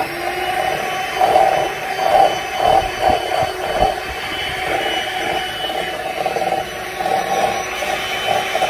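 Electric mixer running steadily, whipping cold heavy cream with sweetener and vanilla into whipped cream; the beaters churn through the cream with an uneven, wavering rhythm.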